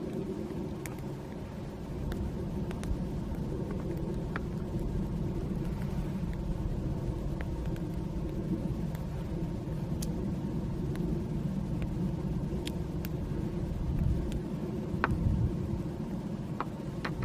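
Wood campfire crackling, with occasional sharp single pops over a steady low rumble.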